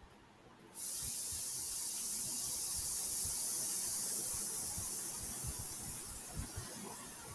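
A steady high hiss of line noise that switches on abruptly about a second in and cuts off just before the end. Faint soft taps of a keyboard and mouse run underneath as a new file is named.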